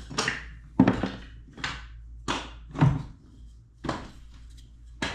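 Small wooden axe-handle wedges clacking and knocking against each other and the box as they are sorted through by hand, about seven sharp knocks spaced under a second apart.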